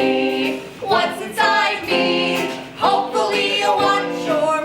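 Music with voices singing held notes over instrumental accompaniment.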